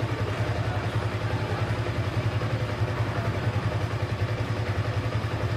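Yamaha R15M's 155 cc single-cylinder engine idling steadily.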